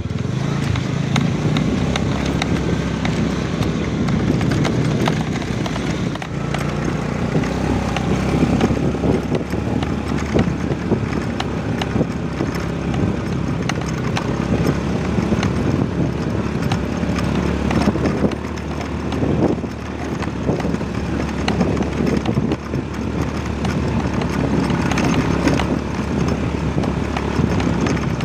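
Motorcycle running steadily along a rough dirt track, with constant rattles and knocks from the bumps.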